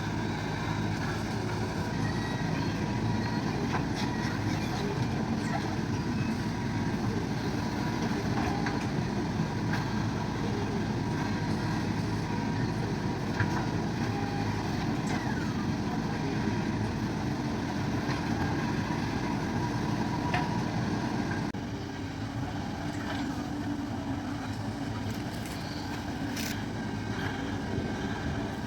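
JCB backhoe loader's diesel engine running steadily under working load, with a few light clicks and knocks. The engine drops a little in level about three-quarters of the way through.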